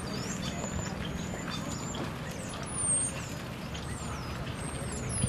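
Outdoor ambience: a steady low rumble with many short, high, thin bird chirps and whistles, some gliding down in pitch.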